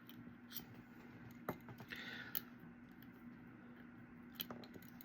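Faint scattered clicks and taps of tiny screws and small case parts being handled during assembly, over a faint steady hum.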